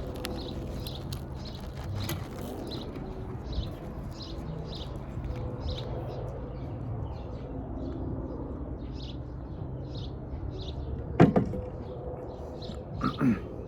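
A small bird chirping over and over, about two short high chirps a second, over a steady low rumble. Near the end come two short, loud, sharp sounds, a knock or clatter.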